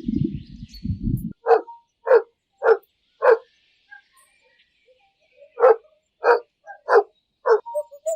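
A dog barking: two runs of four short barks at a steady pace, with a pause of about two seconds between them. A low rumbling sound is heard for the first second before the barks start.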